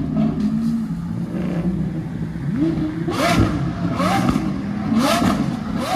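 Lamborghini Aventador V12 engines with aftermarket exhausts idling, then blipped: from about halfway, four sharp revs about a second apart, each rising quickly and dropping back.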